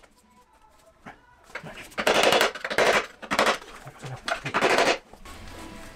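About four short bursts of rapid clattering from a hand tool working loose a stuck fitting on a Husqvarna FE350's stock exhaust silencer. They start about two seconds in and stop about a second before the end.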